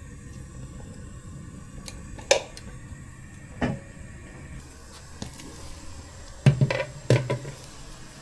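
Kitchen items knocking down onto a counter: a single knock about two seconds in, another a second later, then a louder quick run of knocks near the end, over a steady low hum.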